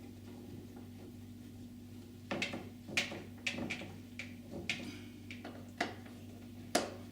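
Hand screwdriver turning the screws of a door chain fitting: irregular clicks and scraping strokes begin about two seconds in, the sharpest near the middle and near the end, over a low steady hum.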